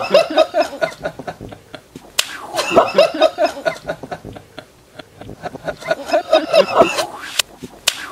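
A water balloon bursting on a person's head with a sharp splat, followed by a woman's laughter. The same splat and laugh come three times, about every three seconds.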